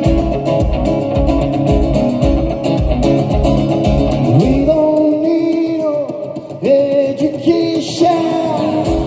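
Band music with guitars over a steady bass beat. About four seconds in the beat drops out, leaving a held melody line that slides in pitch, and the beat comes back near the end.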